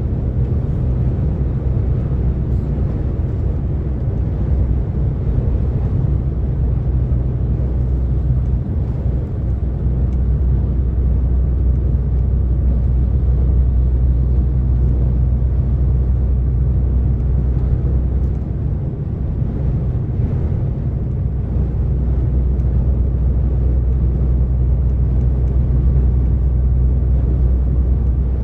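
DAF XF 460 truck's PACCAR MX-13 six-cylinder diesel pulling steadily at motorway cruise, a deep even drone with road and tyre rumble.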